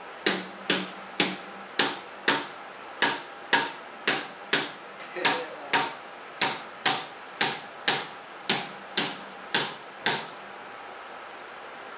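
A hammer striking about twenty times, roughly two blows a second, tapping a part into place on the engine block of a Mercury Verado 300 outboard; the blows stop about ten seconds in.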